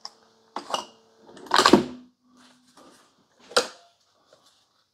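Plastic clunks and clicks of single-serve coffee makers' pod-holder lids being lifted and handled: three sharp knocks, the loudest about a second and a half in, with a few lighter ticks between.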